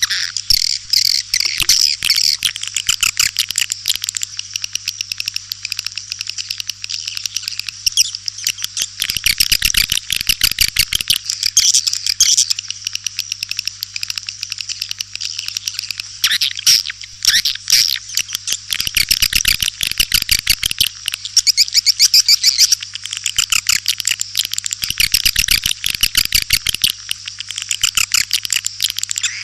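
Recorded calls of white-nest swiftlets (walet putih): a dense, unbroken stream of rapid high chirping twitters, with three spells of fast low pulsing mixed in and a steady low hum underneath. It is a swiftlet calling sound (suara panggil), played at swiftlet houses to lure the birds in.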